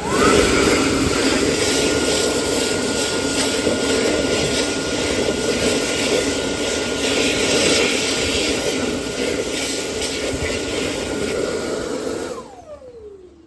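Blade-style hand dryer starting with a quick rising whine, then blowing a loud, steady blast of air with a high whine for about twelve seconds. Near the end its motor winds down with a falling whine as it shuts off.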